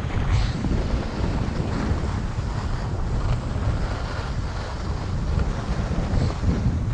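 Wind buffeting the microphone in a rough low rumble as a skier glides downhill, with the hiss of skis sliding over the snow.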